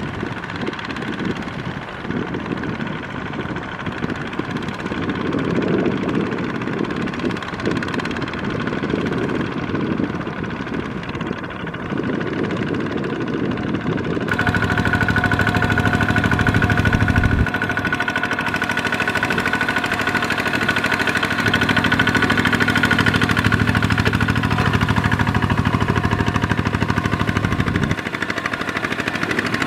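Two-wheel walking tractor's single-cylinder diesel engine running under load while its cage wheels churn through a flooded rice paddy. About halfway through, the engine note becomes louder and steadier.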